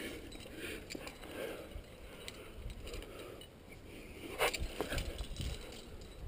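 A rock climber's movements close to a helmet camera: scuffing and rustling of hands, clothing and rope against the rock, with scattered small clicks of climbing gear and one sharper click a little past the middle.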